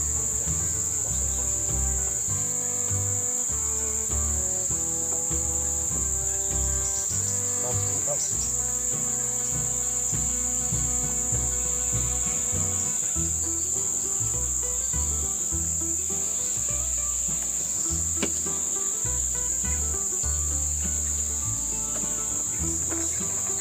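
A continuous high-pitched insect chorus, steady and unbroken, over background music with shifting bass notes.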